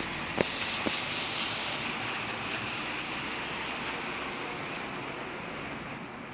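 Steady rushing noise of a thunderstorm's rain and wind, with two sharp clicks in the first second.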